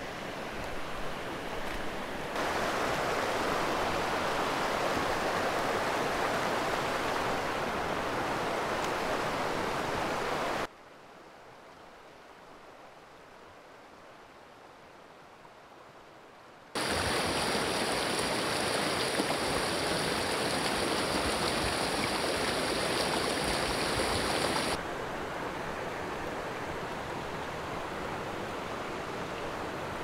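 Shallow rocky creek rushing over stones, a steady water noise that jumps in level at each cut. For several seconds in the middle it drops to a faint, muffled hush heard from underwater, then comes back loud with a high hiss on top.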